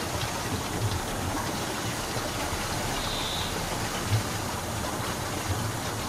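Steady rush of flowing stream water, with one short high-pitched note about three seconds in.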